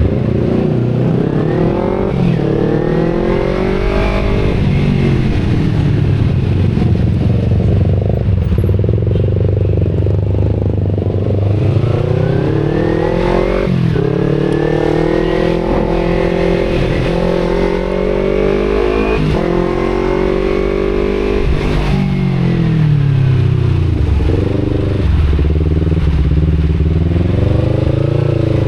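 Kawasaki Z250 parallel-twin engine through an aftermarket Akrapovic exhaust, heard from the rider's position: it revs up through the gears with short drops in pitch at each shift, eases off and falls away, and gives a few short throttle blips before pulling up again near the end.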